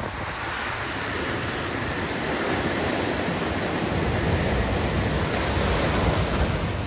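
Small waves breaking at the shoreline and washing up over sand, a steady rush of surf that grows louder and peaks about six seconds in.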